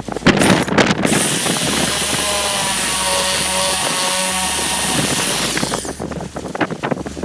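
DrillMaster 1/2-inch corded hammer drill with a masonry bit running steadily into concrete for about five seconds, then released so the motor winds down. Wind buffets the microphone before and after the run.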